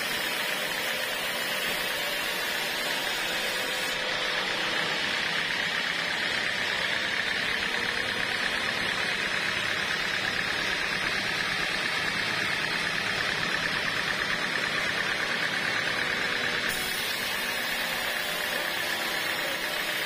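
Band sawmill running, its blade cutting lengthwise through a squared teak beam with a steady sawing noise.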